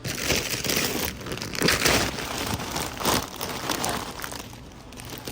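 Crinkling and rustling of plastic potato chip bags being handled, in irregular bursts that ease off after about four seconds.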